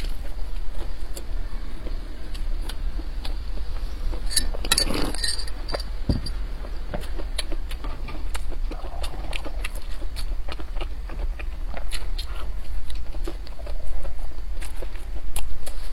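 Close-miked chewing of a crusty nut-filled bread loaf: many small crackly clicks, with a louder crunch about five seconds in, over a steady low hum.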